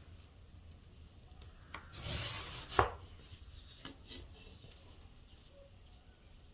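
Tailor's chalk scraping across cotton fabric on a table in one stroke about two seconds in, ending in a sharp click, followed by a few fainter scratches.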